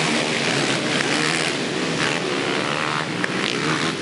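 A pack of racing quads (ATVs) passing together, many engines running hard at once in one loud, steady mix.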